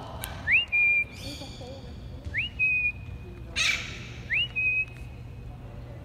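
A person whistling a recall call to a free-flying pet bird: three identical whistles, each a quick upward slide into a held steady note, about two seconds apart. A short burst of noise comes about three and a half seconds in.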